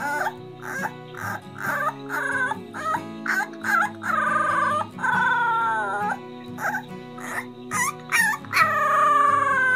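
Bulldog puppy howling, its cries like a newborn baby's: a run of short wavering yelps, then longer drawn-out howls, the last one near the end slowly falling in pitch.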